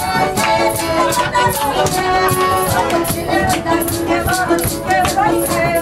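Live Russian folk dance music led by an accordion playing held chords and melody, over a quick, even beat of sharp percussive strokes.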